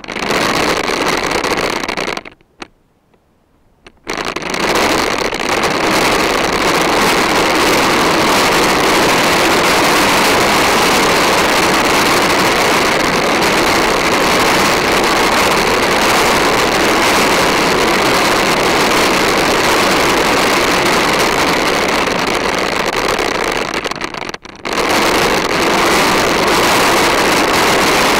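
PlasmaCar ride-on toy rolling on its plastic wheels over a hard court, a loud steady rolling noise carried straight into an action camera mounted on the car. It stops for about two seconds near the start and cuts out briefly near the end.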